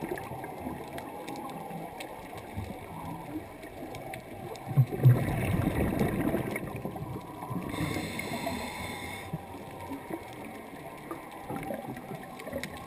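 Scuba breathing through a regulator underwater: a rush of exhaled bubbles about five seconds in, then a hissing inhale through the regulator about eight seconds in, over a steady low underwater rush.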